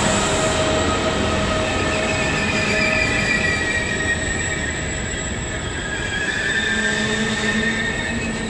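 Trenitalia 'Rock' double-deck electric regional train rolling slowly past the platform, its wheels squealing in several high, slightly shifting tones over a steady rumble.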